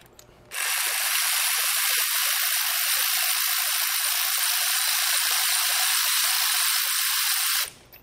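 Power ratchet spinning a spark plug in the cylinder head, a steady high whir that starts about half a second in and cuts off near the end.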